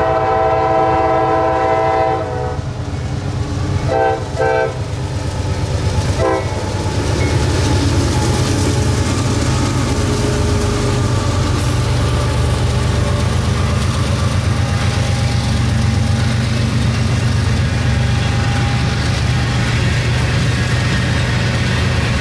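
CSX diesel freight locomotive horn: a long blast ending about two seconds in, then a few short blasts. Then the locomotives pass under heavy throttle, their engines revved to pull a long, underpowered freight train back up to speed after a slow curve, followed by the steady rumble of covered hopper cars rolling by.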